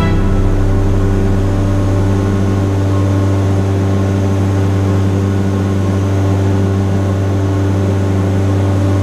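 Steady cabin drone of a propeller aircraft in flight: a deep constant hum with a few higher steady tones over an even hiss.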